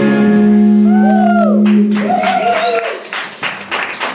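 A live garage-rock band holds the final chord of a song, with a few swooping guitar tones, and cuts off about two seconds in; scattered audience clapping follows.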